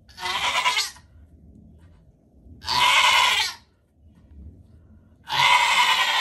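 Nigerian Dwarf doe in labor bleating three times, each call just under a second long, about two and a half seconds apart.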